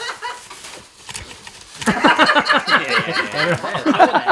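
Wordless laughing and straining from a man's voice, starting about two seconds in and running loud and unbroken to the end; before it, only faint noise.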